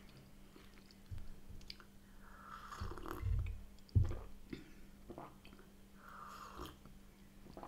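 Faint, close-up mouth sounds of chewing and swallowing, then a sip from a mug about six seconds in.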